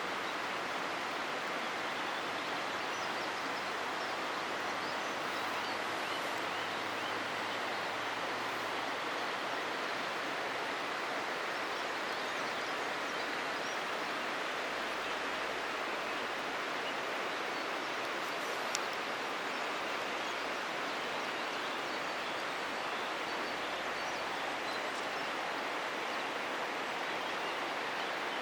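Steady rush of flowing water, like a mountain stream, with a single brief click about two-thirds of the way through.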